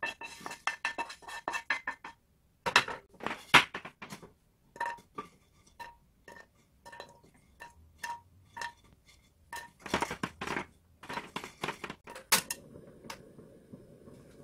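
Pieces of crushed dry instant ramen noodles dropped one after another into a nonstick frying pan, each landing with a sharp tick or clink, in scattered quick runs. A steady low rush starts near the end.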